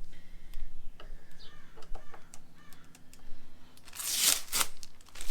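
Hand-handling noises while working on a motorcycle taillight: scattered light clicks and taps, with a brief loud swish about four seconds in.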